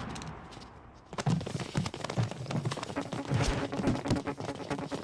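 Fight-scene soundtrack. Music fades out over the first second, then a fast run of punch and impact thuds with sharp clicking hits starts abruptly about a second in. A low steady hum joins around the middle.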